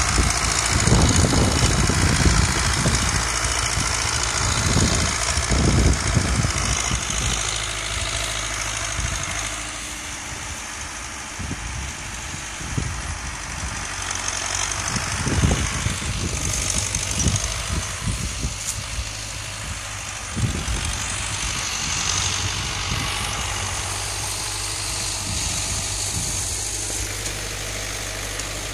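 Zetor 5718 tractor's three-cylinder diesel engine running steadily while pulling a plough, with irregular low rumbles from wind on the microphone, strongest in the first half.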